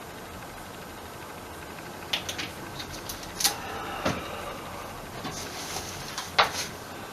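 A few scattered clicks and knocks, with the sharpest knock near the end, over a steady hiss.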